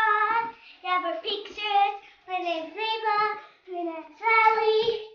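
A young girl singing a made-up tune unaccompanied, in a string of short held phrases, stopping right at the end.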